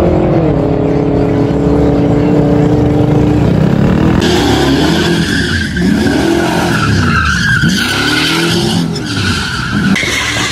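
A car engine running at steady high revs, its pitch dipping slightly just after the start. About four seconds in, the sound changes to cars doing donuts: the engine revving up and down about once a second under continuous tyre squeal.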